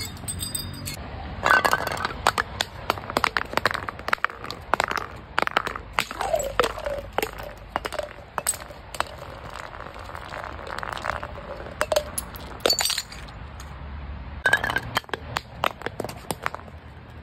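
Bottles dropped and smashed onto concrete steps and hard ground: repeated clattering impacts with glassy clinks and breaking, in several bursts a few seconds apart.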